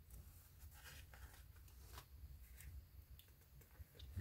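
Faint paper rustles and a few soft clicks as a small card is handled and slid under a paper clip on a journal page.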